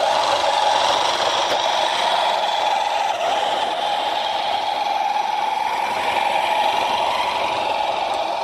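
LGB garden-scale model diesel locomotive running along the track with a steady mechanical drone, easing slightly near the end as it moves away.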